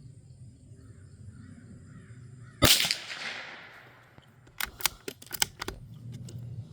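A single shot from a Savage Mark II FV-SR .22 LR bolt-action rifle about two and a half seconds in, a sharp crack with a short ringing tail. A couple of seconds later comes a quick run of metallic clicks as the bolt is worked to eject the case and chamber the next round.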